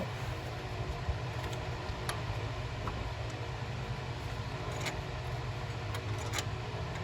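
Hand tools clicking lightly on metal a handful of times, during work on the engine's MultiAir actuator, over a steady low background hum.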